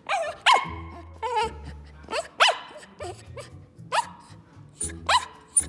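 Miniature poodle giving a rapid series of short, high-pitched, chirp-like barks, about one every half second: demand barking for a chew stick another dog is holding.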